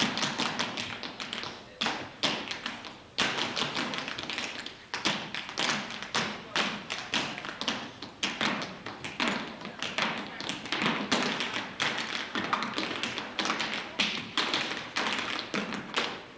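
Tap shoes of three dancers striking a stage floor in fast, dense rhythmic patterns, with a short pause about three seconds in.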